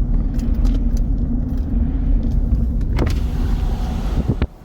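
Car road and engine noise inside the cabin while driving, a steady low rumble with a few light rattles, cutting off suddenly near the end.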